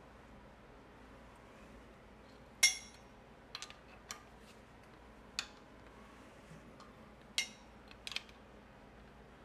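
Sharp metallic clicks and clinks from a hand tool on a small-block Chevy 400 as the engine is turned over by hand. There are about eight of them, irregularly spaced, with two louder ones, one a little after two and a half seconds in and one near the end.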